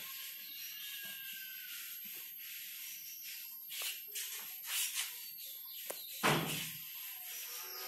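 Blackboard duster rubbing over a chalkboard to erase chalk writing: a series of short dry scrubbing swishes, with one louder thump about six seconds in.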